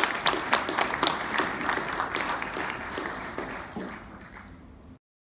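Audience applauding, with single sharp claps standing out, dying away over a few seconds and cutting off suddenly near the end.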